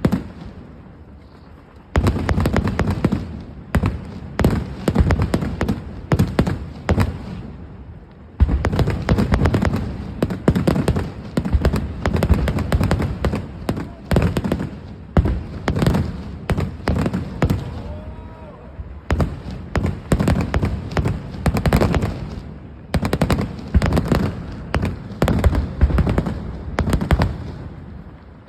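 Temple fireworks barrage: a rapid, dense run of firecracker bangs, many a second, like machine-gun fire. It starts about two seconds in, pauses briefly near eight seconds, then keeps going.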